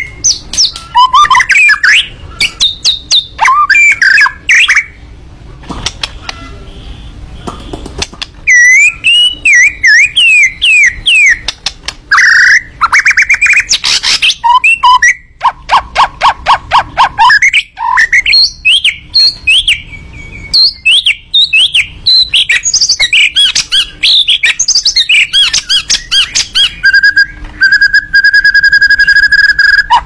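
White-rumped shama (murai batu) in full, loud song: a fast, varied run of bending whistles, rattling trills and harsh chattering notes, with a brief lull a few seconds in and one long steady whistle near the end.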